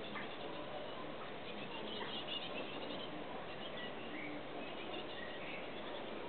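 Small garden birds chirping faintly, a few short calls scattered through, over a steady outdoor background hiss.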